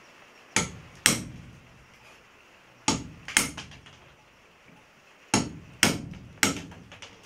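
Hammer blows on an iron chisel held against the edge of a stone slab, chipping it into shape as a lithophone bar. Seven sharp, ringing strikes come in groups of two, two and three.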